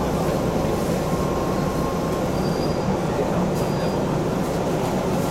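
MBTA Red Line subway car running along the track, a steady rumble and rail noise heard from inside the moving car.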